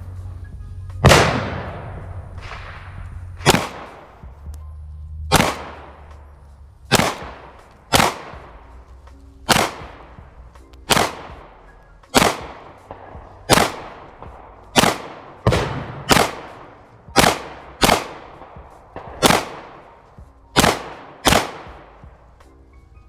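Handgun shots fired one at a time at an uneven pace, about eighteen of them, each with a short echoing tail.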